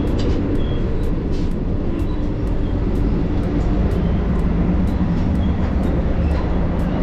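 Vande Bharat Express electric train running at speed: a steady rumble of wheels and running gear, with faint light ticks on top.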